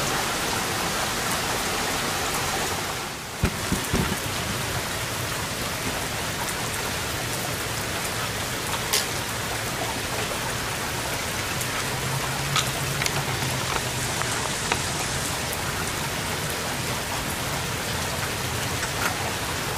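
Steady rain falling in a thunderstorm, an even hiss with a few sharp ticks scattered through it.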